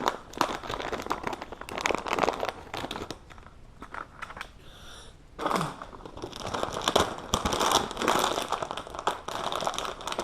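Crinkling and rustling with many sharp little clicks, as small plastic network jacks and their packaging are handled and rummaged through; it is busier and louder in the second half.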